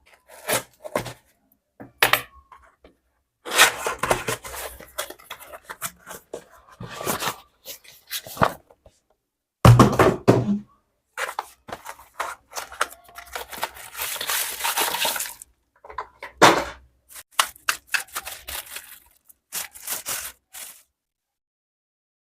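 Unboxing handling sounds from a selfie stick and its packaging: irregular knocks and clicks, with stretches of rustling and tearing packaging, the longest about two thirds of the way through.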